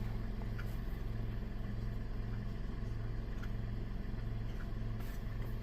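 Toyota car engine idling steadily at normal operating temperature, with the automatic transmission held in its lowest gear against the brake so the transmission fluid circulates.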